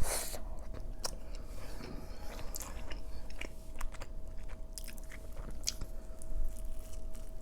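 Close-miked chewing and biting into a large chicken-and-fries burrito dipped in cheese sauce: a string of short, wet clicks and soft crunches, with a sharper bite right at the start.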